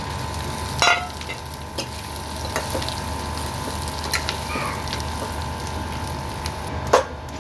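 Boiled potato cubes sizzling as they fry in hot oil and ghee with ground cumin and coriander, being stirred in the pan. Two sharp knocks stand out, about a second in and near the end.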